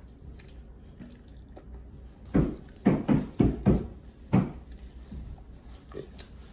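A person clearing the nose and throat into a paper napkin held over the face: a quick run of short, forceful bursts a little over two seconds in, and one more about a second later.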